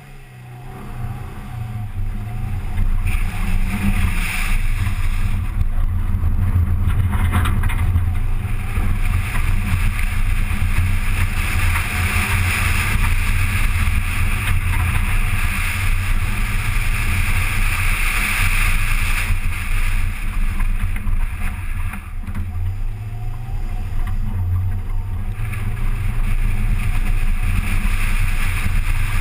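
Acura Integra Type R's 1.8-litre VTEC four-cylinder engine pulling hard as the car launches and drives a dirt rallycross course, with wind noise on the microphone. The engine sound builds over the first few seconds, stays loud, dips briefly about three-quarters of the way through, then climbs again.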